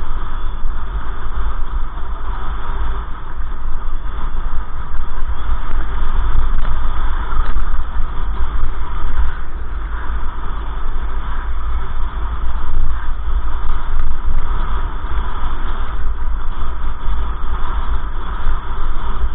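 A moving vehicle recorded from on board: a loud, steady rumble of engine, tyres and wind noise, heavy in the low end.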